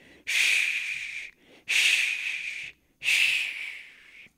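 A man's heavy breaths close to the microphone: three noisy breaths, each about a second long, about one and a half seconds apart.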